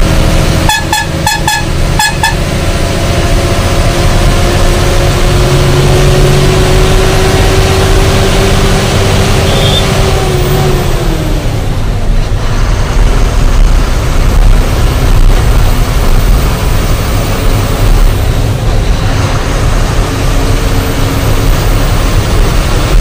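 A quick run of about five short horn beeps about a second in, over the loud, steady running noise of a goods truck on the road. Partway through, a hum in the engine noise drops in pitch.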